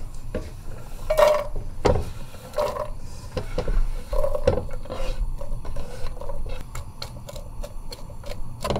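Diced red onion scraped off a wooden cutting board into a pot of hot oil with a few knocks, then stirred with a wooden spoon. In the second half the onion begins to sizzle, with a fast run of crackling ticks and pops.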